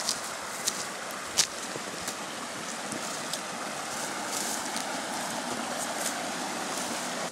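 Footsteps crunching through dry leaf litter and grass, with scattered sharp crackles, over the steady rushing of a creek running over rocks, which grows a little louder about halfway through.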